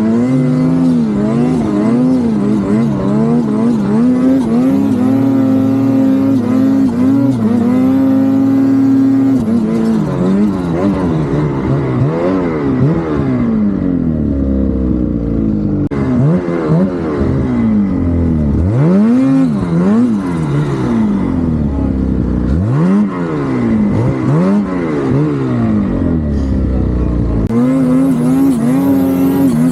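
Turbocharged vehicle engine running hard under load with its turbo whistle. The engine pitch holds roughly steady with a slight waver, then from about ten seconds in rises and falls over and over as the revs climb and drop, and steadies again near the end.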